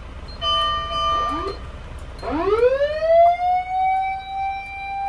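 Isuzu Elf fire truck's warning system: a bell-like ding rings once about half a second in and fades. About two seconds in, the siren whirs up from a low pitch to a high, steady wail and holds it.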